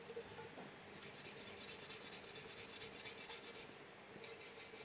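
Small hand-held soft wire brush scrubbing hardened old silicone sealant off the aluminium flange of an oil sump, in quick back-and-forth scratchy strokes. There is a brief break about three and a half seconds in, before a few more strokes.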